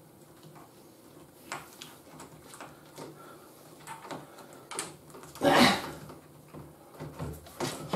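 Quiet handling noises: small scattered clicks and rustles of fingers pressing Blu-Tack and fitting a cable spool onto a pencil, with a louder brief rustle about five and a half seconds in.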